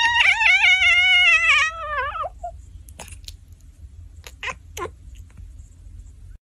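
A domestic cat giving one long, wavering meow of about two seconds that sags in pitch at the end, followed by a few short, much quieter sounds.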